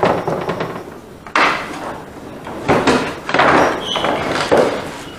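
Old wooden boat interior panels being handled and set down: several sudden knocks, each followed by a short scrape of wood on wood.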